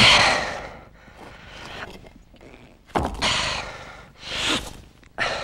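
A man's heavy, straining breathing: loud gasping breaths and sighing exhales, about four of them with pauses between, the breath of someone exerting himself hard.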